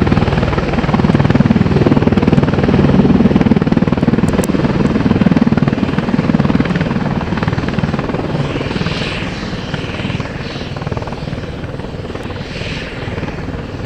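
AH-64 Apache attack helicopter's rotor and twin turbine engines running as it hovers low. Loud at first, then growing quieter over the second half.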